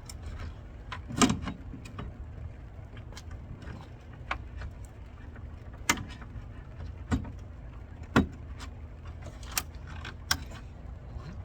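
Scattered clicks, clinks and knocks of hand tools and parts being handled during hands-on car repair work, over a steady low hum. The loudest knocks come about a second in and about eight seconds in.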